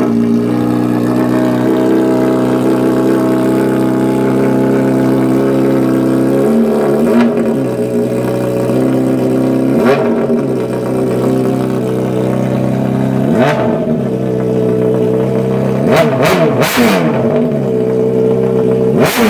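2008 Honda CBR600RR inline-four engine idling after a fresh start, blipped briefly about six times, each rev rising and falling back to idle. It is running through a newly fitted aftermarket exhaust pipe during a sound check.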